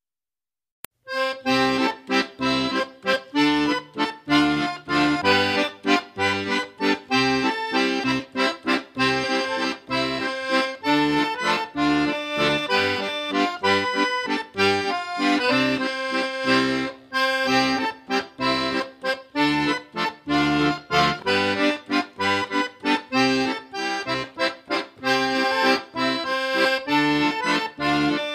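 Background music with a steady beat, starting about a second in after a short silence and a click.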